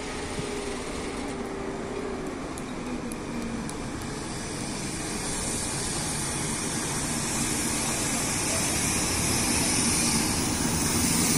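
EP2K electric locomotive hauling a passenger train as it arrives at the platform, growing louder as it draws close and passes. Wheels run on the rails with a rising hiss, and a low whine drops in pitch in the first few seconds.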